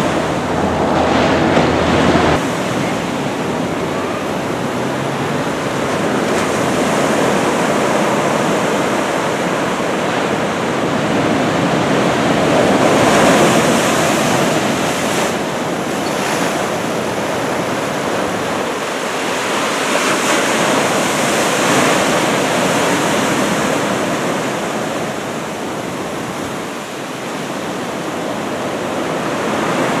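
Heavy typhoon-swell surf breaking on the shore: a continuous wash of waves that swells into louder crashes and eases again every few seconds. Wind buffets the microphone for about the first two seconds.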